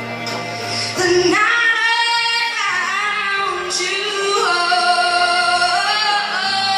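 A woman singing live through a handheld microphone, holding long notes that slide up and down in pitch, with steady instrumental accompaniment underneath.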